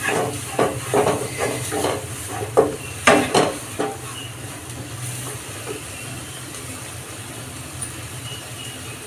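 Wooden spatula stirring and scraping thick masala paste frying in oil in a nonstick kadhai, a quick run of strokes for about four seconds, loudest around three seconds in. After that only the steady low sizzle of the frying paste is left.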